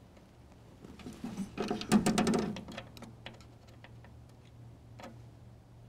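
Light metallic clicking and rattling, a dense flurry about two seconds in and then a few scattered clicks: steel MIG wire and a small screwdriver being worked into the wire-feed drive roller of a MIG welder.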